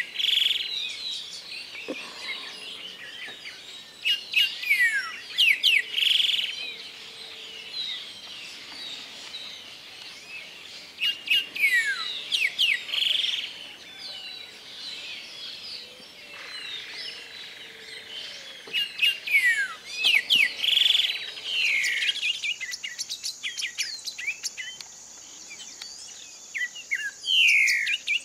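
Grayish saltator singing: short phrases of falling whistled notes, repeated every few seconds. A faint, steady, high-pitched hiss joins about two-thirds of the way through.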